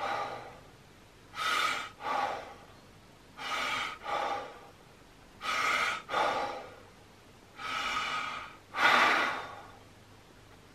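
Wim Hof method power breathing: a man taking deep, forced breaths, each a quick in-breath followed at once by an out-breath, about one breath every two seconds. There are four breaths, the last one longer and the loudest.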